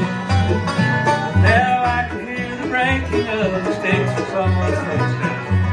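Bluegrass band playing live: banjo, fiddle, mandolin and acoustic guitar over an upright bass plucking a steady beat about twice a second.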